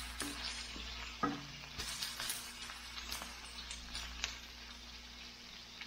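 Chopped shrimp sizzling in a stainless steel wok while a wooden spatula stirs it, with a few sharp taps of the spatula against the pan, the loudest about a second in.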